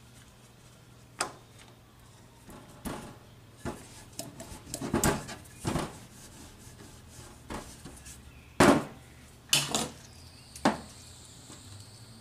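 Wooden rolling pin rolling dough and knocking on a countertop: a run of irregular knocks and thuds, the loudest about two thirds of the way through.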